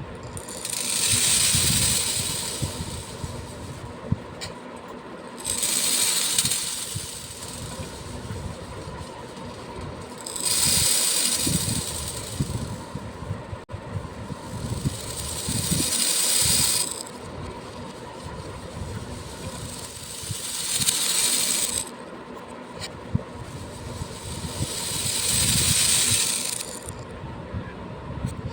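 Small beads being poured in a stream, a rattling, hissing rush repeated six times, each pour lasting a couple of seconds. Between the pours a few single beads click and settle.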